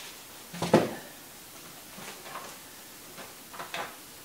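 Cardboard box being opened by hand: a sharp cardboard knock about three quarters of a second in, then a few softer scrapes and knocks as the flaps and cardboard packing are handled.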